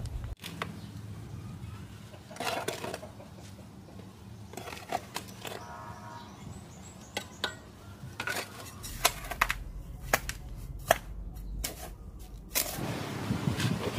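Steel trowel and shovel scraping and clinking against a metal basin as dry sand and cement are scooped and mixed, in scattered sharp strokes. Near the end a louder, wetter sound sets in as water goes into the mix.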